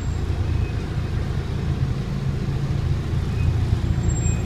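Bus on the move: a steady low engine and road rumble with no marked changes.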